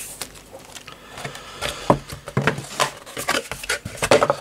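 Irregular rustling and light knocks of clear plastic parts bags being handled on a cutting mat, with a cardboard model-kit box being picked up near the end.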